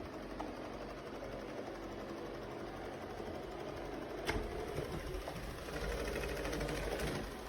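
Shark PowerDetect robot vacuum running with a steady motor hum, with a sharp knock about four seconds in and a louder stretch near the end.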